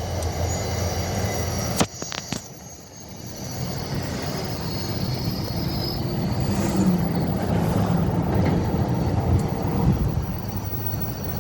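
Train passing with a steady low rumble and rail noise. It breaks off sharply about two seconds in with a few clicks, then builds up again and runs on steadily.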